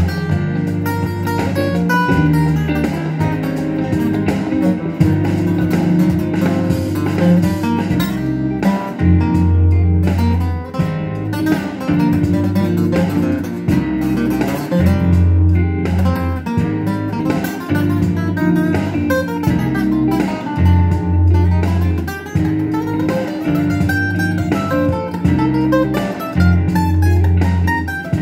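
Solo acoustic guitar improvising in C minor: a run of plucked melody notes over a low bass note that comes back every few seconds.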